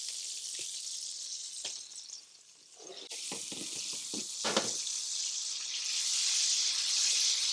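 Garlic, lemon juice and oil sizzling in a stainless steel skillet. The sizzle dies down briefly near the middle, then picks up again and grows louder as a pat of butter melts in the hot pan and is pushed around, with a couple of short clicks.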